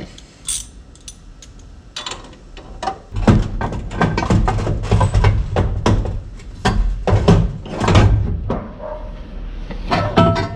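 A rapid run of metal clanks and knocks over a low rumble, like tools and parts being handled and moved, densest between about three and nine seconds in.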